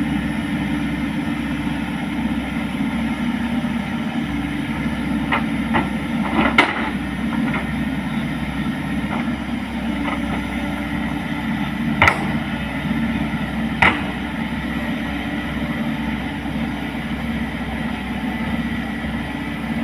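Excavator engine running steadily, with a few sharp metallic knocks about six, twelve and fourteen seconds in.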